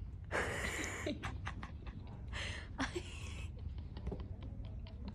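Breathy whispering from a person, in two short bursts, with faint clicks between them over a low steady hum.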